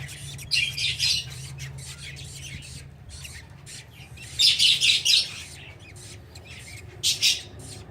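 Budgies squawking in short harsh bouts: once about half a second in, loudest around four and a half seconds, and briefly near the end, over a faint steady low hum.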